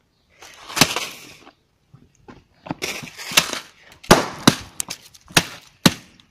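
A run of sharp impacts and smashing crashes, one about a second in and then a quick string of them in the second half.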